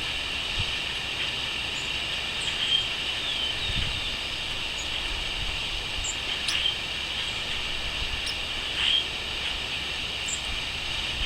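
Steady high-pitched chorus of crickets, with short bird chirps scattered through it and a low rumble underneath.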